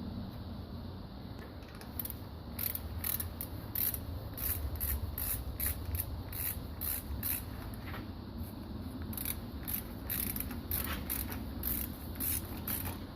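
Ratchet wrench clicking in quick repeated strokes, starting about two seconds in.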